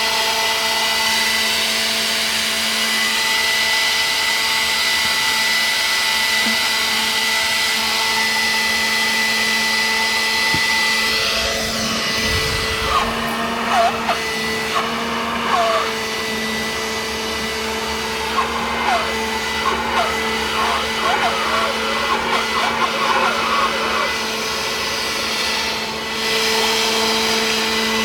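Steady whirring of an electric motor, like a fan or blower, with a constant hum. In the middle stretch, short wavering higher-pitched sounds come and go over it.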